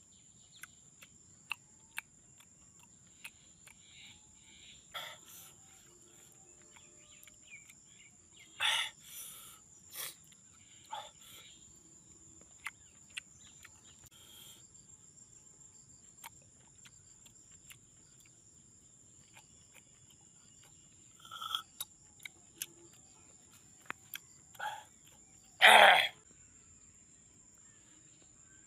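Sporadic eating sounds from picking and eating cooked snails: small sharp clicks of shell and stick, and short mouth noises, the loudest near the end. A steady high-pitched insect trill runs underneath.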